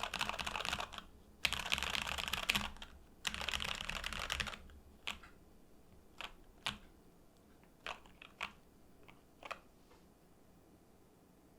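Mechanical keyboard typing on a Monokei Standard with Jwick Black linear switches, a polycarbonate plate, NicePBT keycaps and added case and plate foam. It starts with three quick runs of rapid keystrokes, then about ten single keypresses spaced out, then stops.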